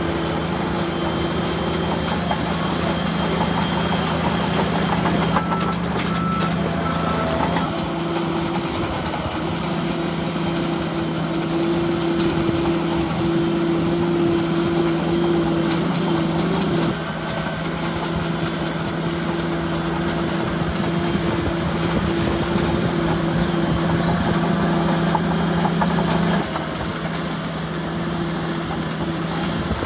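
Bulldozer diesel engines running steadily, with a constant engine hum; the sound changes abruptly three times.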